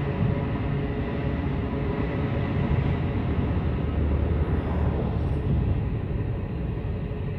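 Long ore freight train of loaded gondola wagons rolling past, a steady low rumble of steel wheels on the rails.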